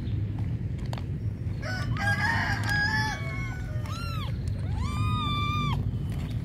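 A rooster crowing: a broken run of calls from about a second and a half in, then one long drawn-out crow about five seconds in, over a steady low background rumble.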